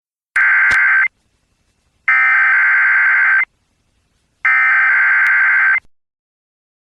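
Emergency Alert System SAME header broadcast over FM radio: three bursts of digital data tones, each about a second long (the first a little shorter), with about a second of silence between them, starting and stopping abruptly. These bursts open a tornado warning alert.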